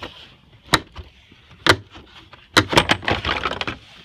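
Sharp knocks and clatter from handling: a single knock under a second in, another about a second later, then a quick run of knocks and rattles near the end.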